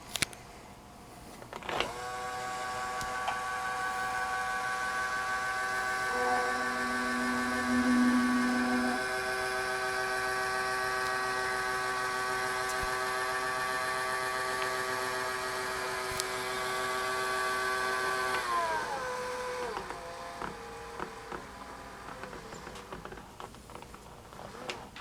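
Small electric drive motor of a gauge 1 model railway turntable running with a steady whine, then falling in pitch as it slows and stops, followed by a few light clicks.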